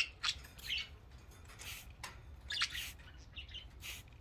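Pet budgerigars chirping: short, scattered high chirps, one after another.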